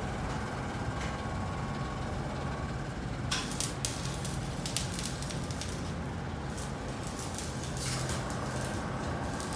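Arc welding on steel floor plate: spells of crackling from the welding arc over a steady low machine hum.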